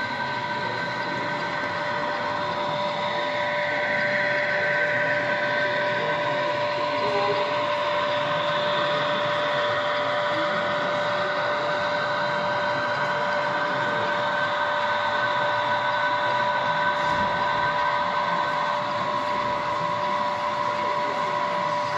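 Model railway locomotives running on an electrified OO layout, giving a steady whining hum of several held tones over a background hall murmur; one of the higher tones drops out near the end.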